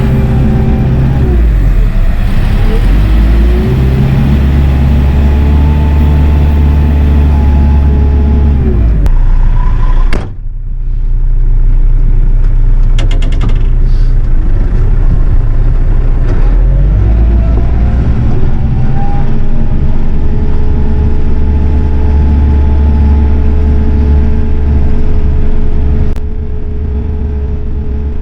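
Kioti RX7320 utility tractor's diesel engine running hard, its pitch rising and falling as it revs under load. The sound briefly drops out about ten seconds in.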